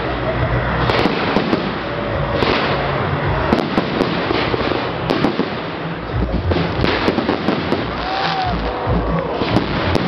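Fireworks display: many sharp bangs of aerial shells bursting, one after another, with crackling from the bursts.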